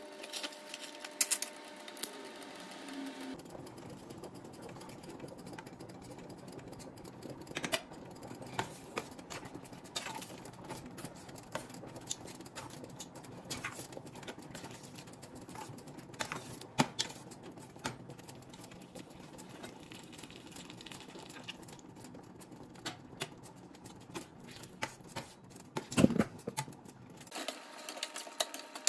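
Metal spoon stirring a thick cream sauce in a stainless steel skillet, clicking and scraping irregularly against the pan over a steady hiss of cooking. The loudest knock comes near the end.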